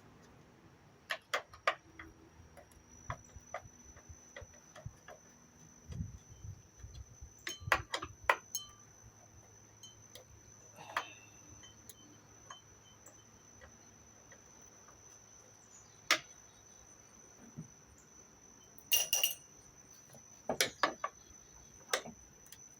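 Scattered clicks, knocks and metallic clinks of tools, screws and panels as the casing of a window air conditioner is taken apart, under a faint steady high tone.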